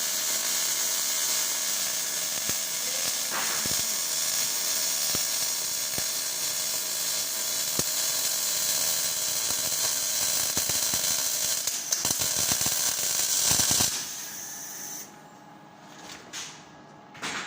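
MIG welding arc on a pipe joint in the 6G position: a steady sizzling hiss that cuts off about fourteen seconds in, followed by a few faint clicks.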